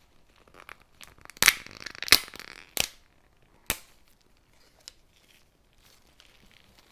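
Close-miked hands working a crunchy ASMR play material such as slime or kinetic sand: crackling with four sharp pops spread over a couple of seconds, then faint scattered ticks.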